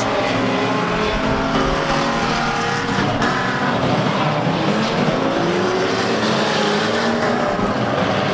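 Several Unlimited Banger race cars' engines running and revving together as the pack goes round the oval, their pitches rising and falling over a steady wash of engine and tyre noise.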